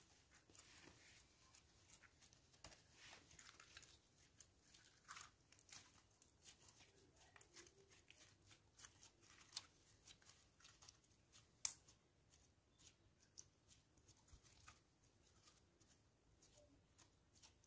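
Faint sticky clicks and crackles of pink glitter slime being kneaded, pressed and stretched by hand, with one sharper click about two-thirds of the way through.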